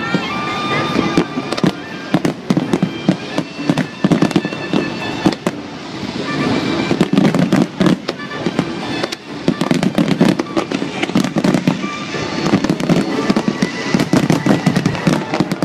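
Aerial fireworks display: many bangs and crackles from bursting shells in quick succession, overlapping without a break.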